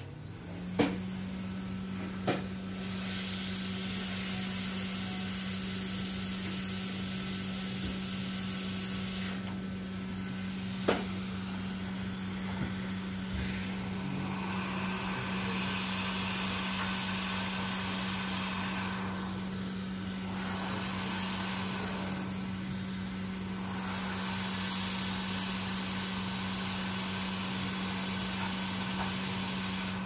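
Hot-air SMD rework station blowing over a motherboard to reflow a small coil into place: a steady fan hum under a rushing hiss of air that swells and dips as the nozzle moves. A few sharp clicks near the start and once about eleven seconds in.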